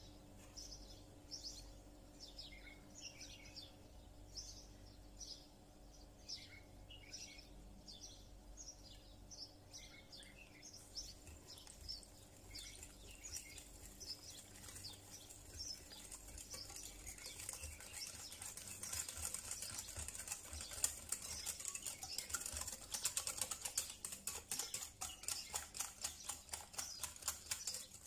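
Wire whisk beating egg batter in a glass bowl: rapid clicking and tapping against the glass that starts about halfway through and grows louder and faster. Before it, a small bird chirps repeatedly in short, falling notes.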